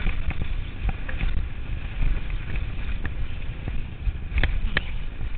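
Wind buffeting the microphone of a chest-mounted camera on a fast downhill mountain-bike run, a steady low rumble. Through it, the Turner DHR downhill bike clatters over the rough dirt trail in frequent sharp clicks and knocks, with two louder knocks about four and a half seconds in.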